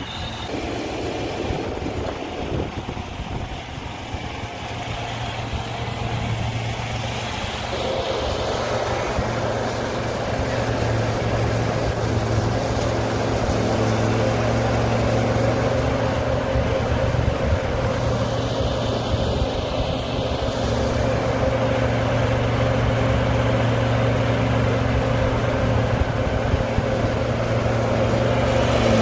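A farm vehicle's engine running steadily and growing louder over the first dozen seconds, with a second, higher steady tone joining about eight seconds in.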